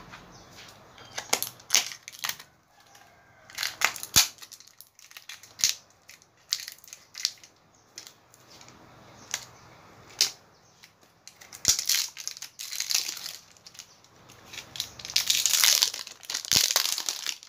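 Stack of pleated paper baking cups rustling and crinkling as they are handled and pulled apart, in irregular short crackles. About fifteen seconds in, a longer spell of crinkling, with a plastic bag handled at that point.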